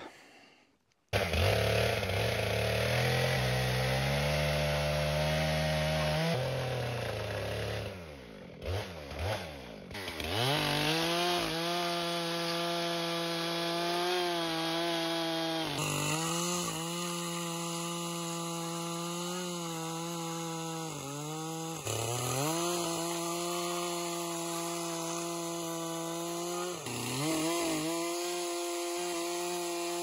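Stihl two-stroke chainsaw running at high revs and cutting through stacked dry offcut slabs, starting about a second in. Its note dips briefly several times as the chain bites into the wood.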